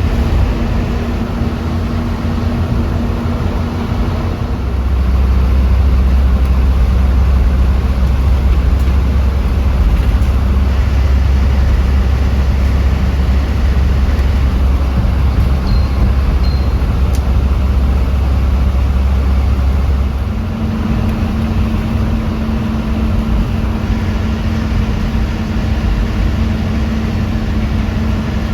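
A TNSTC bus's engine running on the road, with a steady hum; for about fifteen seconds in the middle it turns to a louder, deeper drone before settling back to the earlier hum.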